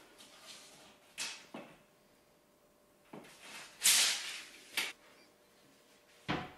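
Steel tape measure being pulled out and slid along a board, a series of short rasps and clicks, the loudest about four seconds in. A single knock near the end.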